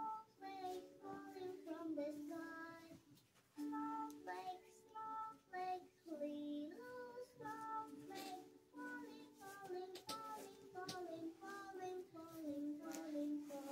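Quiet background music: a simple, high-pitched nursery-style melody sung in a childlike voice, repeating the same short phrase about every three seconds.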